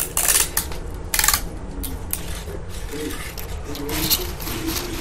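Stiff paper rustling and scraping as long fringed strips of green paper are handled and rubbed against each other. There are two louder crinkling bursts in the first second and a half, then lighter rustling.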